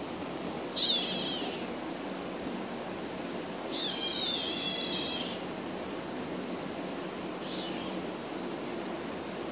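Kitten giving high-pitched squeals while play-fighting: a short cry about a second in, a longer wavering one around four seconds, and a faint brief one near the end, over a steady background hiss.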